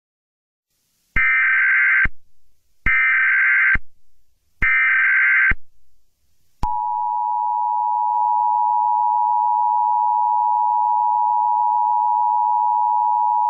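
Emergency Alert System tones: three short bursts of SAME header data tones, then a steady two-tone attention signal starting about halfway through.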